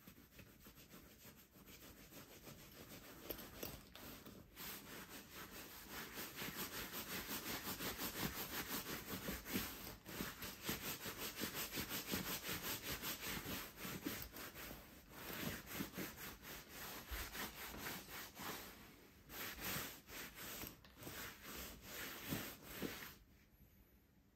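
Bare hands rubbing back and forth over the sheepskin leather of a Schott Type B3 flight jacket, a soft rubbing of quick strokes that grows louder in the middle and fades away near the end.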